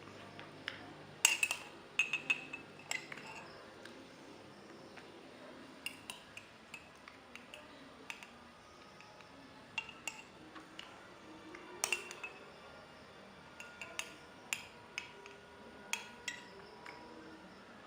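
Kitchen utensils clinking against a glass and dishes: scattered sharp clinks, some with a short ring. The loudest come about a second in and again near twelve seconds.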